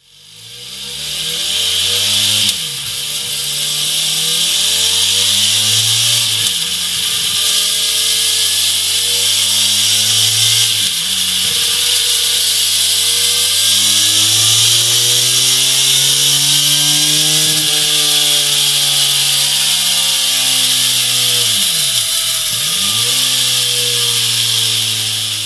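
Benelli Leoncino 500's parallel-twin engine running through a Mivv Oval slip-on exhaust, its pitch rising and falling several times, with a steady hiss over it. It fades in over the first two seconds and fades out near the end.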